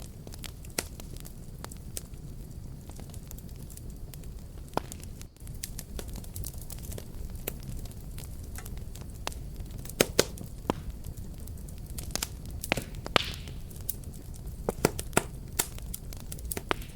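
Fireplace fire burning with a steady low roar, crackling and popping irregularly; a cluster of sharp pops comes past the middle, with a brief hiss among them.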